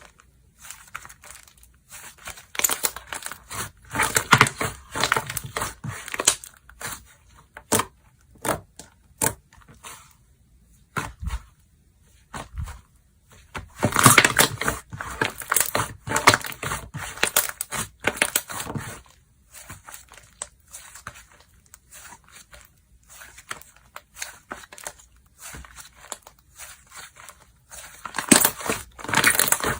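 Slime being squeezed, stretched and pressed by hand, giving dense runs of small clicks, crackles and pops in three busy spells: a few seconds in, around the middle, and near the end.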